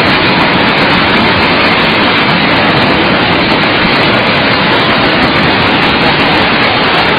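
Floodwater rushing in a swollen mountain river, a loud steady rush that does not let up.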